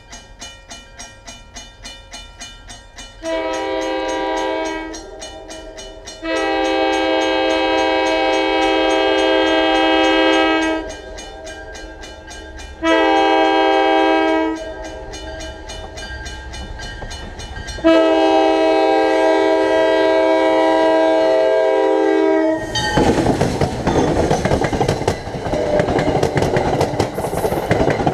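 Grade-crossing bell ringing steadily while an approaching train sounds a multi-note air horn in four blasts: a short one, a long one, a short one, and a long one held until the locomotive arrives. This is the crossing warning signal. The train then passes close by with loud engine and wheel noise and a fast clickety-clack of wheels over rail joints.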